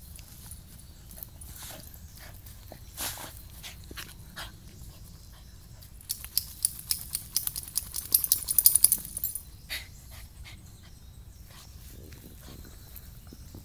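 Shiba Inu moving about on a dirt trail, with scattered scuffs early on. In the middle, a few seconds of rapid, bright jingling and rattling come from its collar tag and harness.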